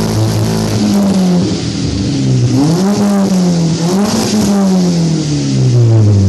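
Modified sports car engine under acceleration. The engine note dips and climbs back twice in the middle, then slides steadily lower toward the end.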